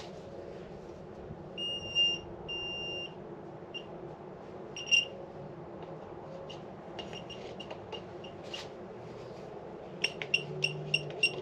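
Handheld pinpointer metal detector beeping as it is held to pieces of magnetic ironstone 'hot rock'. There are two longer tones about two seconds in, a few short scattered beeps, then fast repeated beeping near the end. The signal comes from the iron mineralisation in the rock.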